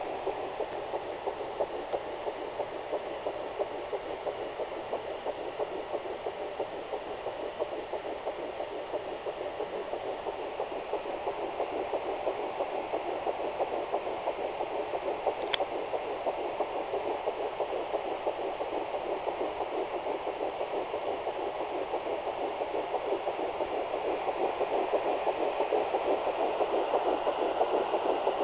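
Sonoline B handheld fetal Doppler playing a rapid, pulsing whoosh through its speaker: the baby's heartbeat at 8 weeks 4 days of pregnancy. It grows slowly louder over the second half.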